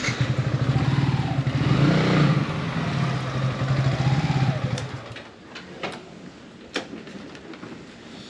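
A motor vehicle's engine running close by for about five seconds, then fading away, followed by a couple of sharp clicks.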